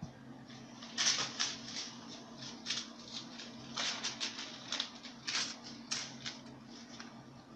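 Irregular rustling and light clicking of small objects being handled, about a dozen short bursts, over a faint steady low hum.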